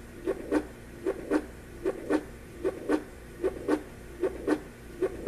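Heartbeat sound from a Conair SU7 sound-machine clock radio, played through its small built-in speaker: a steady double thump, lub-dub, repeating about once every 0.8 seconds.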